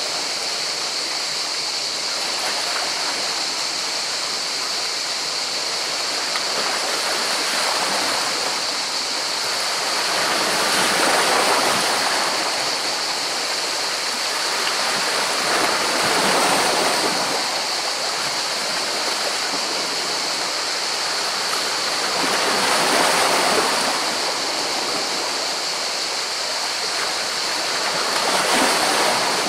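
Sea waves washing in over rocks: a steady rush of surf that swells louder four times, about every six seconds, as waves break.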